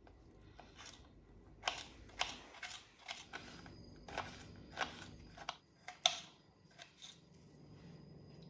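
Kitchen knife dicing red chili peppers on a cutting board: irregular sharp knocks of the blade striking the board, about a dozen of them, the loudest a little after six seconds in.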